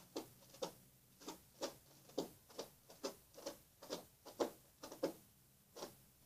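A pet plucking at the carpet: short, even scratchy plucks, two to three a second.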